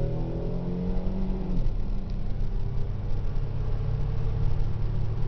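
Pontiac Grand Prix GTP's supercharged 3.8-litre V6 at full throttle on an eighth-mile drag pass, heard from inside the cabin: the engine pitch rises, drops at an upshift about a second and a half in, then pulls on again.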